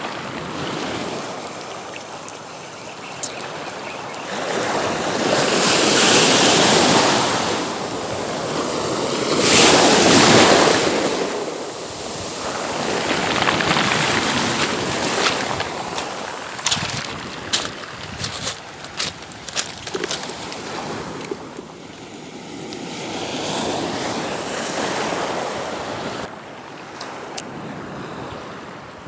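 Sea waves breaking and washing up a beach, surging louder every few seconds, with wind buffeting the microphone. A run of short, sharp clicks comes a little past the middle.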